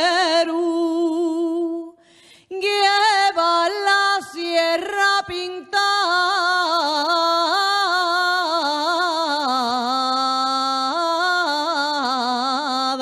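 A woman singing an Asturian tonada unaccompanied, holding long vowels with wavering melismatic ornaments. She breaks off briefly for breath about two seconds in and again at about five seconds.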